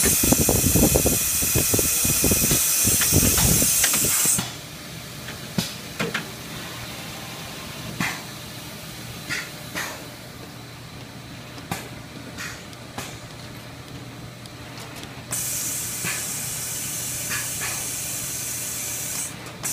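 Compressed air hissing loudly from the pneumatic part-handling of a Koyo grinder's automatic loader, cutting off abruptly about four seconds in. A quieter stretch of machine running follows, with scattered sharp clicks and knocks, before the air hiss starts again near the end.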